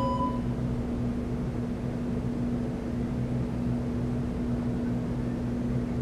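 Steady low electrical room hum. Right at the start, a short electronic timer beep ends.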